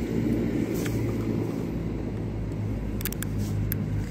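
Steady low engine rumble of nearby motor traffic, with a few short sharp clicks about three seconds in.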